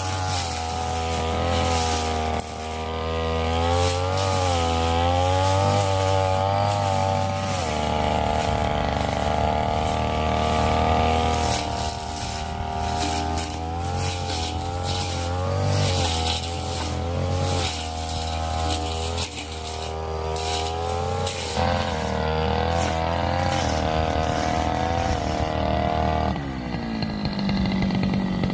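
Petrol brush cutter engine running hard, its pitch rising and falling as the blade bites into scrub, with short ticks of stems being struck. About two seconds before the end the engine drops back to a lower, steadier note.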